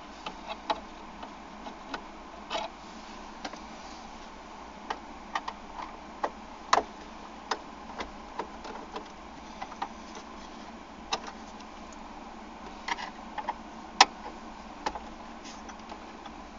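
Scattered light clicks and taps of a Phillips screwdriver on screw heads and hard plastic dashboard trim as the stereo's retaining screws are undone, with one sharper click near the end.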